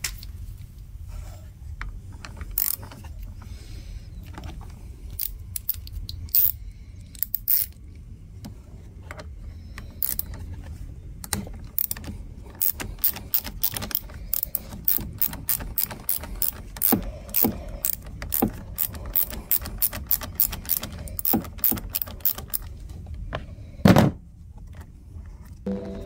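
Socket ratchet clicking in quick runs while the bolt on the bottom of a generator carburetor's float bowl is worked loose, with one louder knock near the end.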